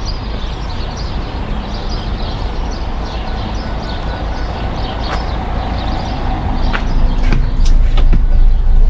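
Steady low rumble and road noise of a moving vehicle, growing louder about seven seconds in, with a few faint clicks.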